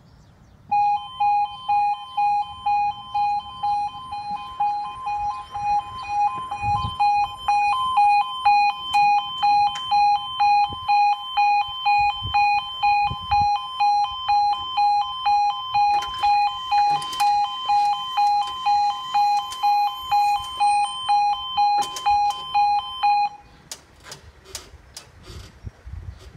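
Level crossing audible warning alarm beeping in a steady pulsed two-tone pattern about twice a second while the barriers lower. It stops abruptly about 23 seconds in, followed by a few faint clicks.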